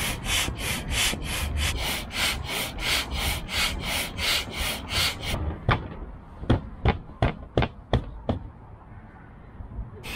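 Hand air pump inflating an inflatable boat: a fast, regular run of hissing pump strokes, about three a second. After about five seconds come roughly seven sharper, shorter strokes, then it goes quieter.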